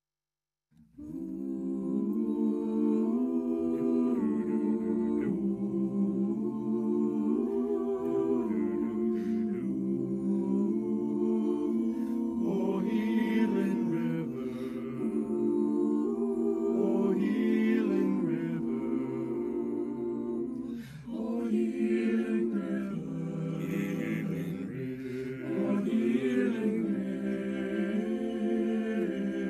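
Virtual choir of men's and women's voices singing a slow hymn together, starting about a second in.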